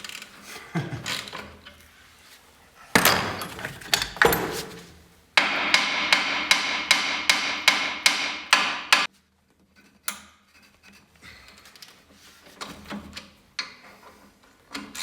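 Hammer striking metal: two single blows, then a quick run of about a dozen ringing strikes, roughly three a second, that stops suddenly, followed by one more blow.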